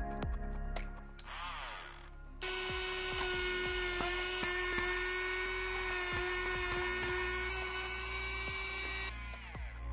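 Small handheld rotary tool (mini drill) drilling holes through a copper-clad PCB, giving a steady high whine. The whine cuts in about two and a half seconds in and winds down in pitch near the end.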